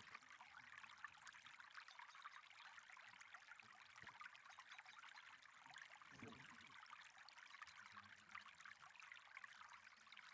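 Faint, steady rush of flowing canal water.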